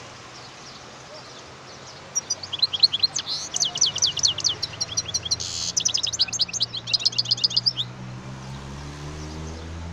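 European goldfinch singing. It starts about two seconds in with a rapid, twittering burst of quick high notes lasting about six seconds, with a short buzzy note in the middle.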